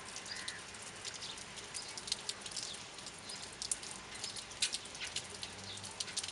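Steady rain falling on wet pavement and puddles, with frequent sharp ticks of drops landing close by.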